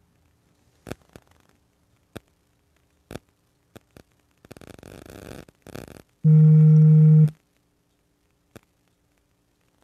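A few soft clicks and a brief rustle, then a loud, steady, low buzzing tone lasting about a second, starting and stopping abruptly about six seconds in.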